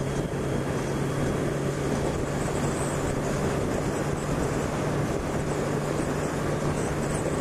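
1999 Yamaha YZF600R's inline-four engine holding a steady note at highway cruising speed, with wind rushing over the microphone.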